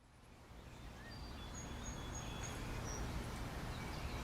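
Outdoor park ambience fading in: a steady low background rumble with small birds giving short, thin, high chirps from about a second in.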